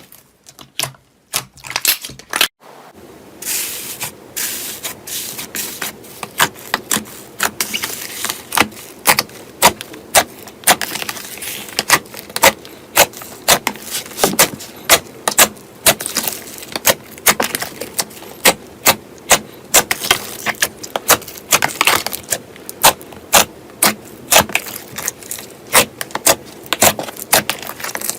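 Slime being squeezed and poked by hand, giving sharp clicking pops and crackles, roughly one or two strong pops a second over a softer crackle. The sound changes abruptly about two and a half seconds in, becoming denser.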